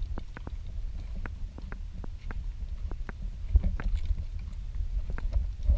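Light clicks about three times a second, in step with a walking horse carrying the camera, over a low rumble of wind on the microphone.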